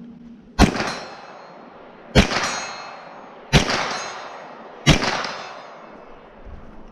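Four gunshots about a second and a half apart, each followed by a long echoing tail with a metallic ring from steel targets being hit.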